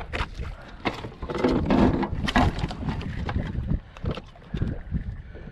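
Irregular knocks and rustles of a lingcod being handled on a measuring board on a kayak deck, over low wind rumble on the microphone.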